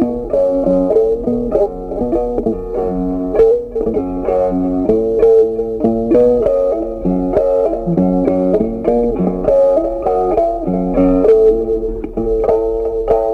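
Background music: a plucked guitar melody with a bass line.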